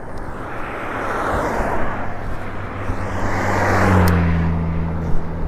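Road traffic: cars passing with two swells of tyre and road noise, then a steady low engine hum from a nearby vehicle that dips slightly in pitch about four seconds in.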